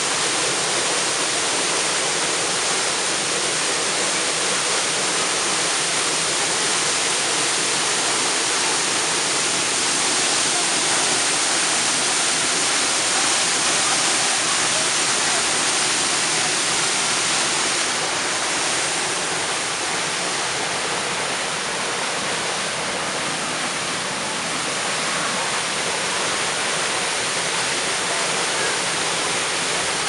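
Waterfall pouring and splashing onto rock close by: a steady, dense hiss of falling water, a little quieter for a few seconds past the middle.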